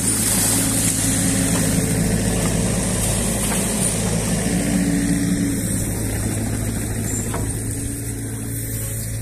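Mini excavator's diesel engine running steadily under working load while the hydraulics lift, swing and lower the bucket; a higher hum swells briefly about halfway through.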